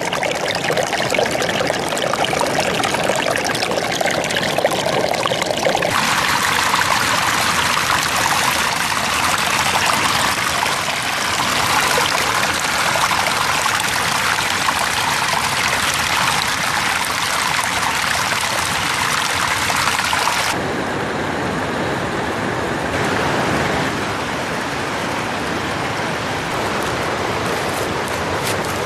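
Running water splashing and trickling over rocks in a mountain stream, with a steady rush from the Jhelum River; the sound changes abruptly about six seconds in and again about twenty seconds in.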